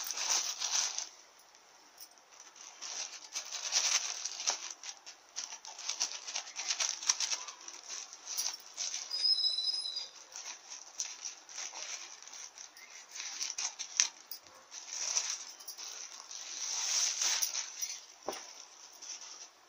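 Plastic courier mailer bag rustling and crinkling in irregular bursts as it is handled and opened.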